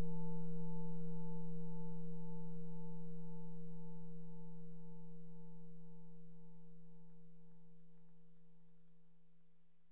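Singing bowl ringing out: a low steady hum with a few fainter higher overtones, slowly fading away, the highest overtones dying out first.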